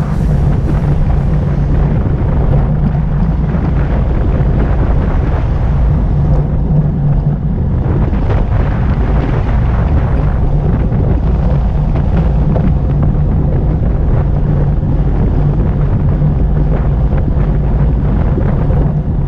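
Wind buffeting the microphone of a bike-mounted action camera on a fast road descent at about 45 km/h: a loud, steady rushing roar.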